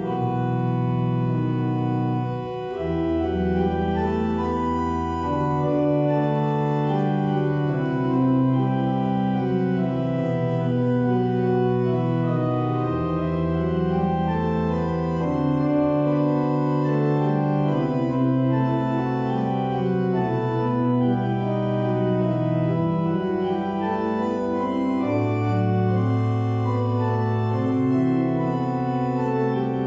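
Organ playing slow, held chords in a contemporary classical piece, with deep pedal bass notes coming in a few seconds in and again about halfway through.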